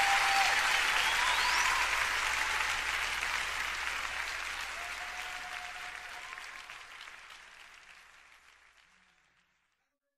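Concert audience applauding, with a few whistles and voices in the crowd. The applause fades out steadily to silence by about nine seconds in.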